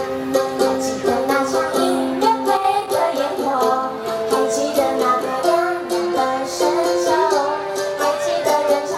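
Two young women singing a pop song into microphones over recorded backing music with a steady beat, heard through the stage's loudspeakers.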